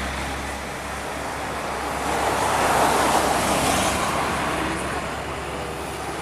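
Road traffic on a mountain climb: a tractor-trailer's diesel engine droning low under a rushing noise of tyres and passing vehicles, which swells to its loudest about halfway through and then eases.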